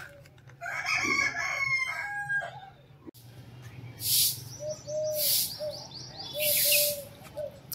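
A rooster crows once, a call of about two seconds. Then, after a cut, a broom sweeps paving stones in three long swishing strokes.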